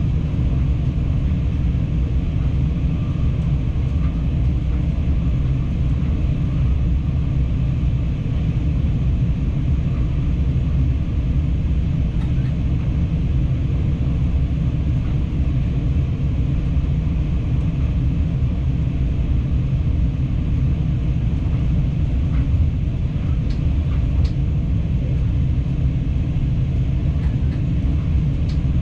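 Passenger train running steadily at speed, heard from the driver's cab: a constant low rumble of the running gear and drive, with a few faint ticks in the second half.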